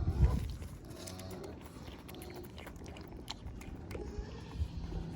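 Farm animals eating pieces of watermelon: wet chewing with scattered short clicks. A low thump comes right at the start.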